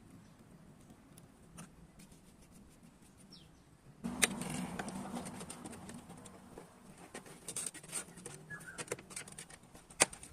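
Faint background with a couple of small bird chirps, then from about four seconds in a run of irregular small clicks and taps from hands and tools working the fuel hoses and hose clamp of a fuel filter.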